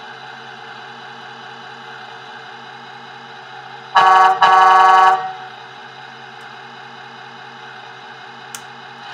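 Two blasts of a truck air horn, about four seconds in, the second longer than the first. They come from the sound electronics of a Tamiya Scania R620 model truck, over a steady low hum.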